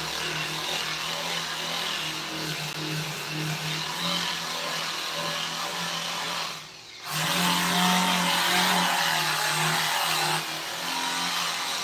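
A power tool's motor running steadily, a hum with a hiss over it. It dips briefly about seven seconds in, then runs louder for a few seconds before easing back.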